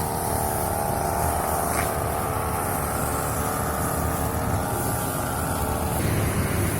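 Two-stroke brush cutter engine running steadily at high speed while cutting grass.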